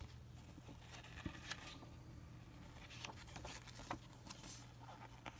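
Pages of a glossy paper instruction booklet being turned and handled: faint rustles and several short crisp paper clicks, over a steady low hum.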